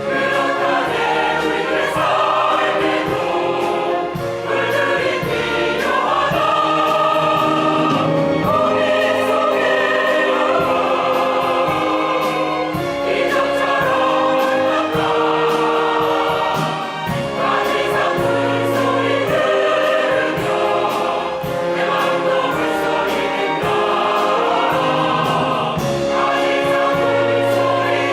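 Choral song: a choir singing sustained, layered vocal lines with accompaniment.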